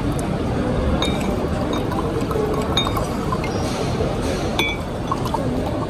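Water poured from a clear glass bottle into a drinking glass, with about three light clinks of glass on glass, over a steady busy room background.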